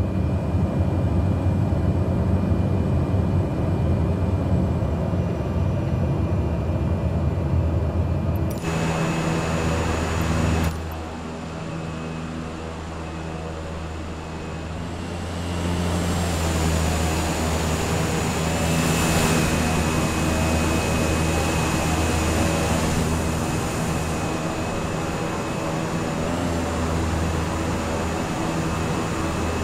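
Cessna light aircraft's piston engine and propeller droning steadily. The sound changes abruptly around nine and eleven seconds in, then dips in loudness for a few seconds before returning.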